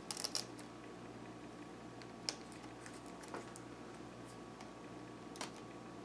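Small clicks and taps of a screwdriver tip working at a laptop's battery connector, prying it loose: a quick cluster at the start, then single clicks about two, three and five seconds in, over a low steady hum.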